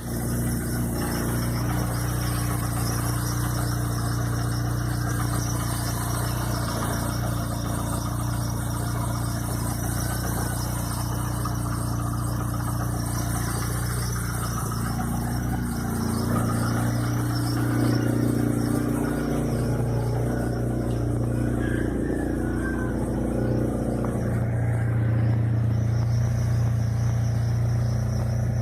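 Chevrolet Vectra's engine running steadily with a strange noise. Its steady hum shifts a little in pitch past the middle.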